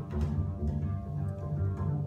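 Solo double bass played pizzicato: low plucked notes ringing on over one another, with a few sharp new attacks.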